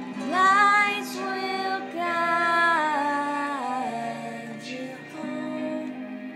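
A child singing a slow melody in several long, held phrases over a steady sustained accompaniment tone.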